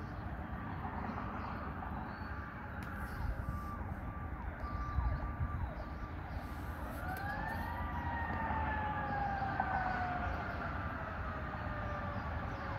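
Fire apparatus siren winding up sharply about six seconds in, then sliding slowly down in pitch, over a steady low rumble.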